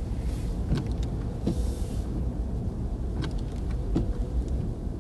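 Car moving along a snowy road: a steady low road rumble with a few light, irregular knocks.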